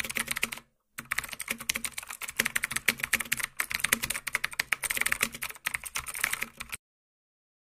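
Keyboard-typing sound effect: rapid, dense keystroke clicks accompanying text being typed onto the screen, with a brief break about a second in, stopping suddenly near the end.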